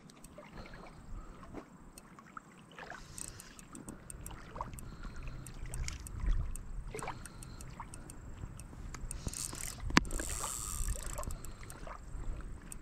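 Light water sloshing and splashing with scattered small clicks and knocks, and one sharper click about ten seconds in.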